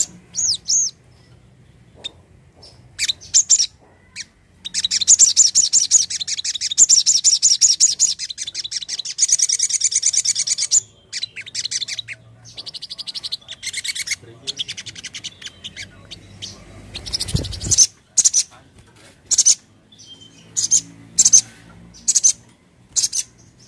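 Caged sunbird (sogon) singing: a few chirps, then a long, fast trill lasting about six seconds, followed by shorter trills. Near the end come short, sharp single 'cret' calls, one or two a second. A low thump a little before these calls.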